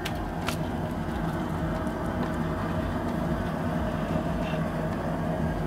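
Propane crawfish-boil burner running steadily at full heat under a pot at a rolling boil, a low even rumble. A couple of sharp metal clinks near the start as the aluminium basket of crawfish goes into the pot.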